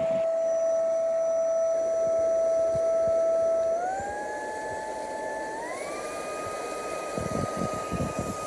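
Cordless stick vacuum's motor running with a steady high whine that steps up in pitch twice, about four and about six seconds in, as the motor speeds up to higher suction settings.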